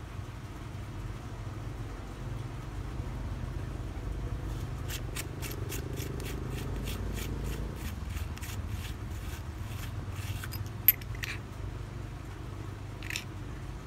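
Rifle scope's adjustment turret being turned by hand, clicking through its detents at about three clicks a second for several seconds, then a sharper single click and one more shortly after, over a steady low hum.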